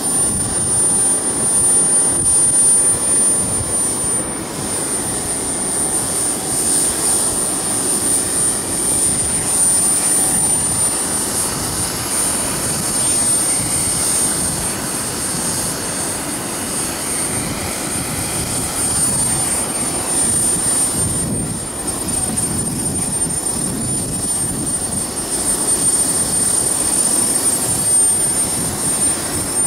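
Falcon 120 model jet turbine running steadily on the ground: a thin, steady high whine over a broad rushing exhaust noise.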